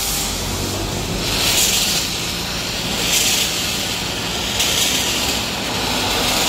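Automatic foaming tank's spray hissing as it blasts shampoo foam onto a corrugated metal wall; the hiss swells and fades about four times over a low steady hum.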